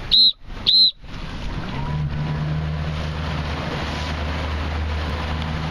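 Two short high electronic beeps, then a motorboat engine running steadily under a rush of wind and water.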